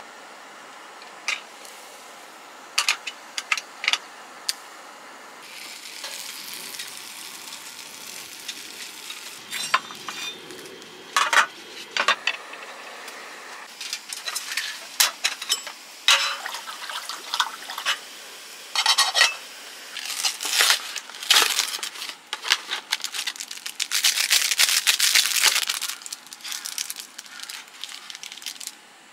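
Camp cooking sounds: food sizzling in a Coleman hot sandwich maker on a small gas stove, scattered clinks and taps of a metal camping kettle and its lid, and a foil seasoning packet being torn and crinkled near the end.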